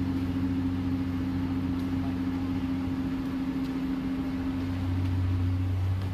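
Komatsu hydraulic excavator's diesel engine running as a steady low hum while the machine works its boom and bucket. The low hum grows a little louder about four and a half seconds in.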